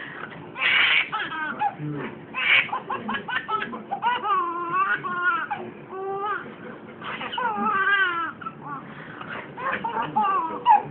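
A baby laughing in high, wavering squeals, with an adult's voice and laughter mixed in and a couple of loud breathy bursts near the start.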